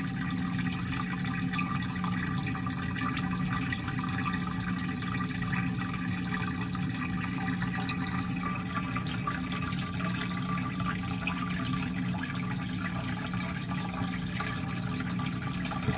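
Aquarium hang-on-back filter pouring water back into the turtle tank: steady splashing and trickling, over a low hum.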